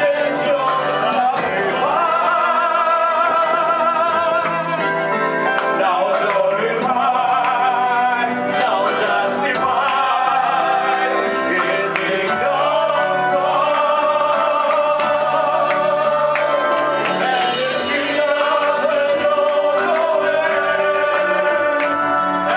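Group of men singing a gospel song together through handheld microphones, with vibrato on the held notes.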